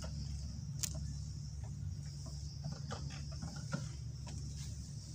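Chickens clucking faintly over a steady high-pitched drone and a low rumble of outdoor ambience, with a couple of sharp clicks, the loudest about a second in.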